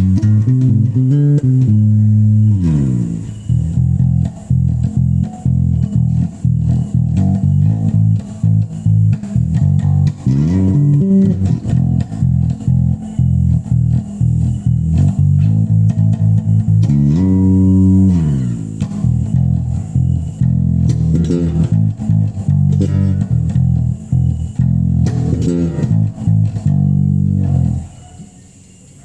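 Bass guitar playing loud low notes with several sliding glides in pitch, stopping about a second before the end.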